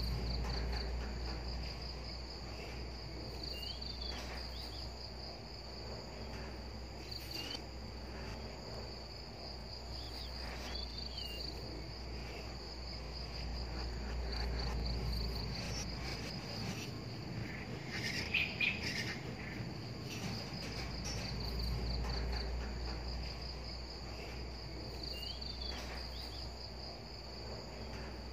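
Insects trilling in a steady, high, pulsing chirr, with a few short chirps now and then and a low rumble underneath.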